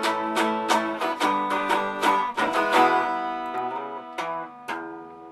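Plucked string accompaniment playing the closing bars of a song: quick strummed strokes, then a few slower notes and a last chord left ringing, fading out near the end.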